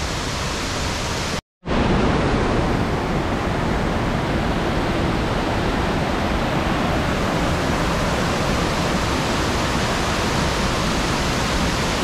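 Waterfall rushing in a steady roar of falling water. It cuts out for a moment about one and a half seconds in, then carries on a little louder.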